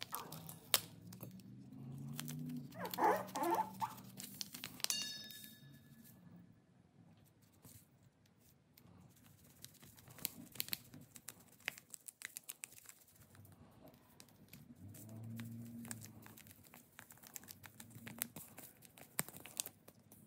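A paper yeast packet crinkling and rustling in the hands, with faint scattered ticks and patter as dry yeast is shaken into a plastic measuring spoon and tipped into a steel bowl of water.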